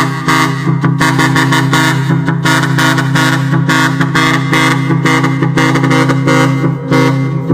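A truck's musical multi-tone air horn playing a tune in quick, changing notes.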